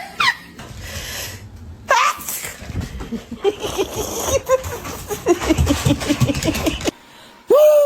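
A sharp sneeze, then several seconds of laughter in quick repeated bursts. After a sudden cut, a dog starts a long, steady howl near the end.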